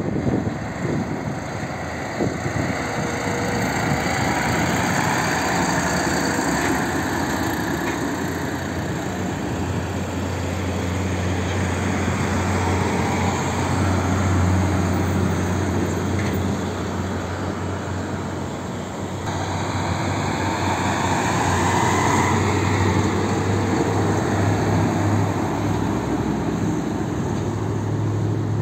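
Heavy diesel trucks pulling away and passing on a toll road: a steady low engine drone over tyre and traffic noise, with the sound changing abruptly about two-thirds of the way through.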